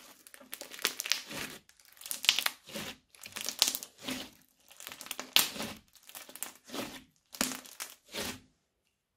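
Hands squeezing and kneading bead-studded crunchy slime, each squeeze giving a crackling crunch: about a dozen squeezes in a row, one every half second or so, stopping shortly before the end.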